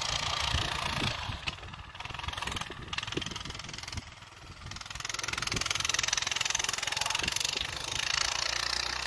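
Coleman BT200X minibike's small single-cylinder engine running as it is ridden through snow. It dips in loudness about four seconds in, then comes back louder.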